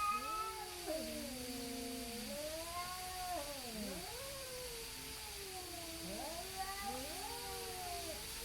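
Two cats caterwauling at each other in a standoff: long, overlapping, wavering yowls that rise and fall slowly in pitch, the drawn-out threat calls of a territorial face-off before a fight.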